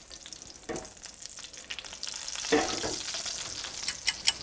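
Browned herb butter and avocado oil sizzling and crackling in a hot cast iron skillet. Near the end comes a quick run of sharp clicks.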